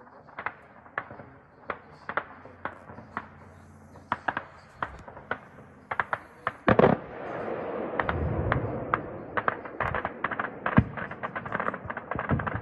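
Small-arms gunfire aimed at a drone overhead: single shots at irregular intervals, a loud burst about seven seconds in, then quicker, denser shooting over a steady rushing noise.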